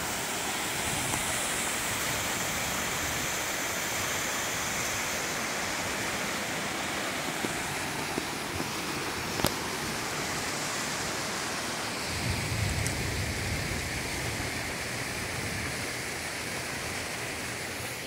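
Waterfall pouring down a rock face: a steady rush of falling water.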